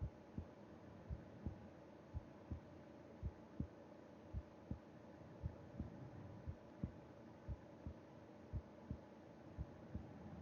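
A sleeping person's heart beating slowly and steadily, heard close up through the chest: paired lub-dub thumps about once a second.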